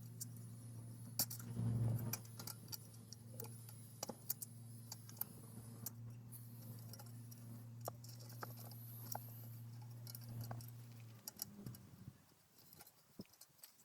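Scattered light clicks, taps and clinks over a steady low hum; the hum stops about eleven seconds in, leaving only the occasional click.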